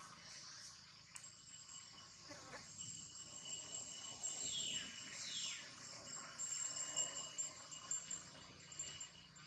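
Insects buzzing steadily in high, thin tones, with two short falling calls from an animal around the middle.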